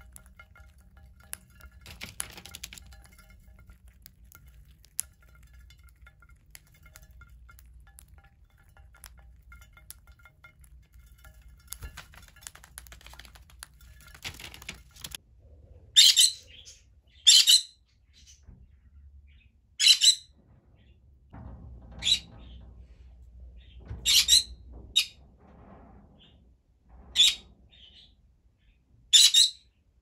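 Faint clicks of beaks and seed on a glass seed dish, then a green-cheeked conure calling loudly: about eight short, sharp squawks roughly two seconds apart. These are the contact calls a conure gives when it cannot see its flock mates, here the budgies.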